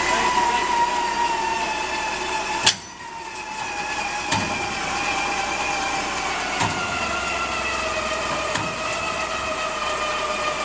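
Yale propane forklift working under load: its engine and hydraulics give a steady whine whose pitch slowly sags. A single sharp clank about three seconds in, and a few lighter knocks later, come from the metal being pushed.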